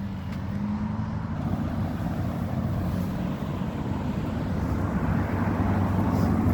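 Road traffic going by at a roundabout: car engines humming and tyre noise, slowly getting louder toward the end.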